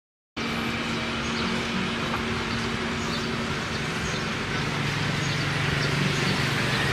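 Outdoor ambience with a steady vehicle engine hum, cutting in suddenly after a moment of silence.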